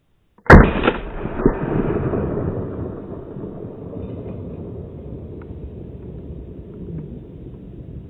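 A single very loud gunshot from a hunting gun about half a second in, followed by a second, quieter crack about a second later and a long rumbling echo that rolls off the surrounding hillsides and fades slowly over several seconds.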